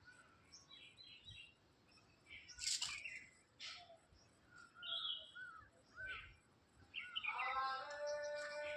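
Faint scattered bird chirps and calls, with a longer pitched call near the end.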